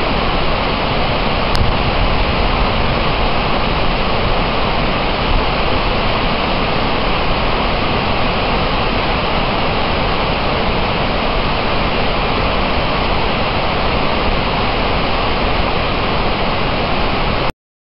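Steady, loud rushing of a waterfall, the Genesee River's Upper Falls in the gorge below the bridge. It cuts off suddenly near the end.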